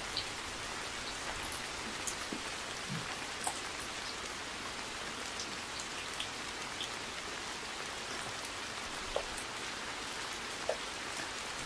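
Steady rain, an even hiss with single close drops striking now and then.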